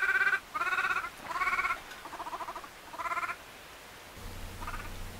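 Young vervet monkey giving a string of short, buzzy, bleat-like cries, about one a second, the last ones fainter. A low hum comes in near the end.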